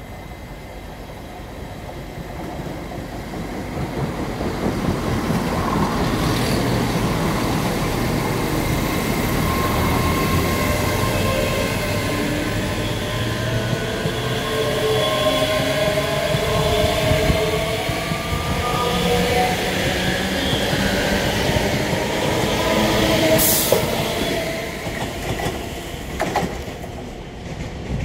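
ScotRail Class 385 electric multiple unit pulling away and running past, its traction motors whining in several rising tones as it accelerates. It swells over the first few seconds, stays loud, and fades as the last carriage goes by near the end, just after a brief sharp high burst.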